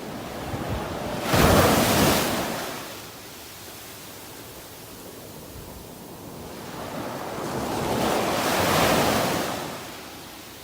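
Ocean waves breaking on a sandy beach. One wave crashes suddenly about a second in and fades away; a second swells slowly and washes up near the end.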